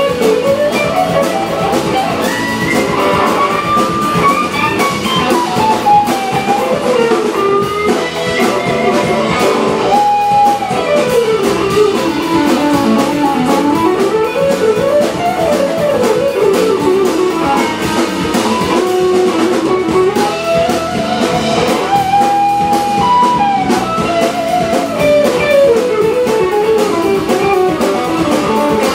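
Background music: a guitar-led, bluesy instrumental with a melody line weaving up and down over drums.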